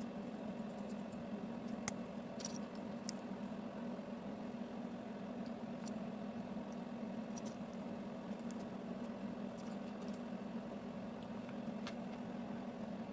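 Plastic LEGO bricks being handled and pressed together, giving a few sharp clicks, loudest about two seconds in, over a steady low hum.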